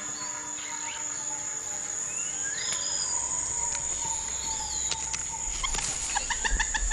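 Tropical rainforest ambience: a steady high-pitched insect drone under scattered bird calls, with a quick run of short chirps near the end.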